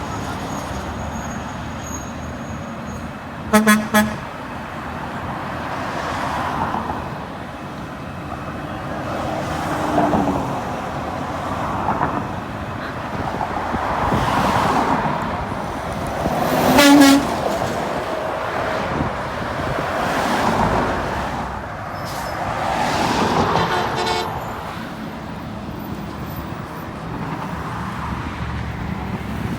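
Garbage trucks driving past, with horn honks: a quick double toot about four seconds in and a single louder honk a little past the middle, over the swelling noise of trucks going by.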